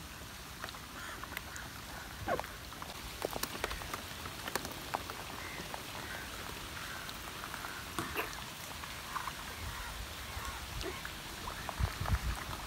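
Rain falling on the surface of a creek: an even hiss with scattered sharper drop ticks, and a few low thumps near the end.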